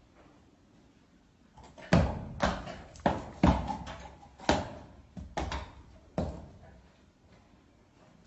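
A run of about eight sharp knocks or thumps, unevenly spaced, starting about two seconds in and stopping a couple of seconds before the end.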